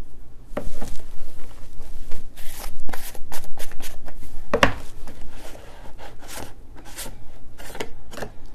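Screw-top lid of a plastic slime tub being twisted and handled, with irregular scratchy rubbing and clicks of plastic on plastic. The loudest click comes about four and a half seconds in.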